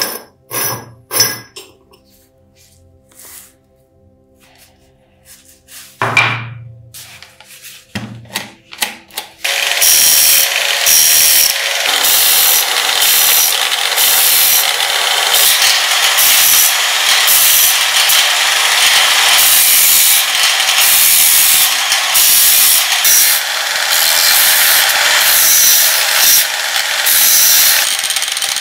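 Angle grinder fitted with a sanding disc running against a small metal lamp fitting: a loud, steady grinding hiss that starts about ten seconds in, with brief dips as the part is shifted on the disc. Before it come a few clinks and knocks of metal parts being handled on the bench.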